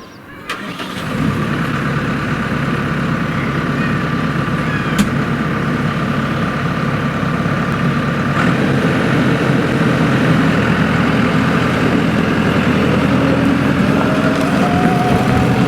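Tractor engine running steadily; it comes up to a loud, even drone about a second in.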